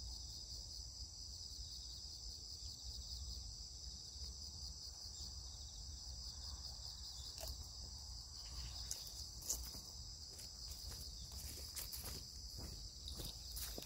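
Steady high trilling of an insect chorus in summer grassland. From about halfway through, scattered light clicks and rustles come as a person walks up through the grass toward the microphone.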